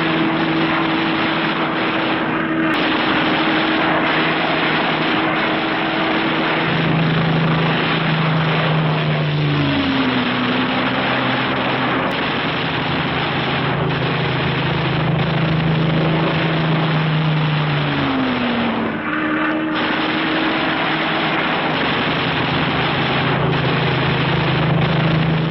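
Propeller aircraft piston engines running with a loud, steady drone. Their pitch drops a little about ten seconds in and rises back about two thirds of the way through.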